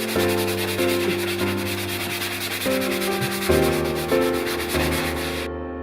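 Background music: held chords that change every half second or so over a fast, even hissing rhythm like a shaker. The hissing rhythm cuts off suddenly near the end while the chords go on.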